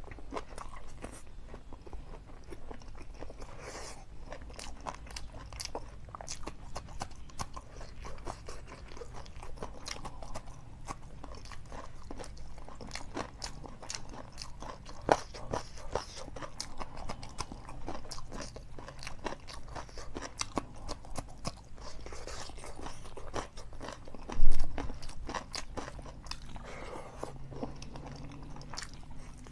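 Close-miked chewing of chicken curry and rice: a steady run of wet mouth clicks and smacks. One sharp click about halfway through, and a louder dull thump about two-thirds of the way in.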